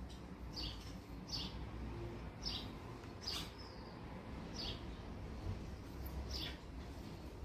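A small bird chirping: short, high, slightly falling chirps, roughly one every second, over a low steady rumble.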